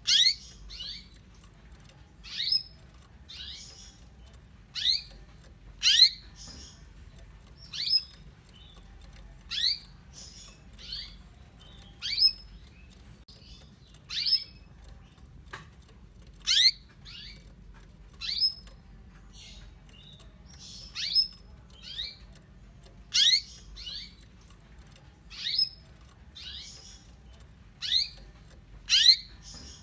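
Female canary calling: short, high chirps that each sweep quickly downward, repeated about once a second and sometimes in quick pairs. It is the call of a hen canary in breeding condition calling for a male.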